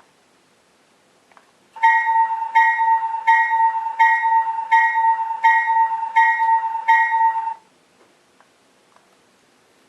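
Recorded GE locomotive steel bell ringing about eight strokes, roughly 0.7 s apart, then cutting off suddenly. It is played back by a sound decoder through a small speaker inside an HO-scale model locomotive.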